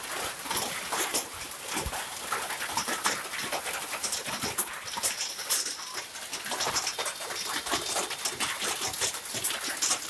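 Heavy hail pelting a wet road and vehicles: a dense, steady clatter of small impacts over the hiss of pouring rain.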